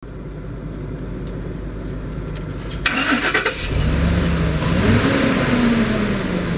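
2012 Ford F-250 engine being started: the starter cranks briefly about three seconds in, then the engine catches, flares up in revs and settles back toward idle.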